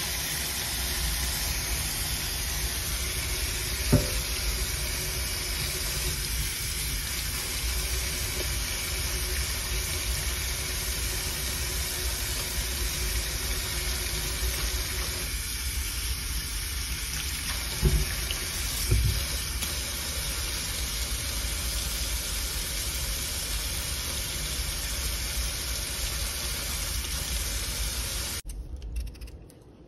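Kitchen tap running steadily into a stainless steel sink while potatoes are washed, with a few brief knocks; the running water stops abruptly near the end.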